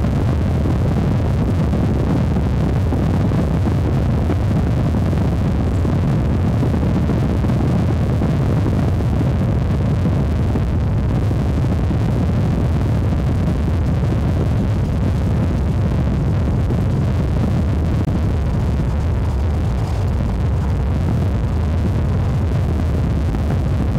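Steady low rumble of wind and road noise from a moving vehicle, with wind buffeting the microphone.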